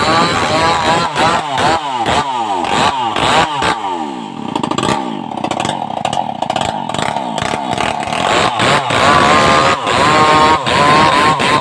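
Stihl MS381 two-stroke chainsaw running hard. Its pitch falls again and again in the first few seconds, sits lower and quieter around the middle, and comes back up to full revs near the end.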